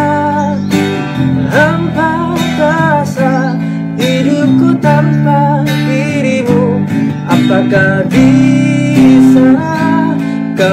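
A male voice singing an Indonesian pop ballad, accompanied by a strummed acoustic guitar and an electric bass guitar.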